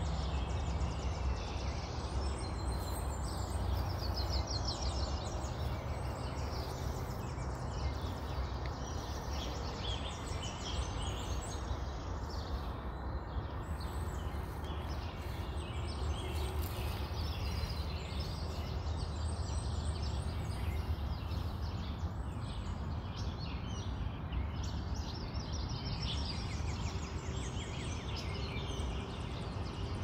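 Brood X periodical cicadas chorusing: a steady hum with pulsing, higher buzzes laid over it, above a constant low rumble.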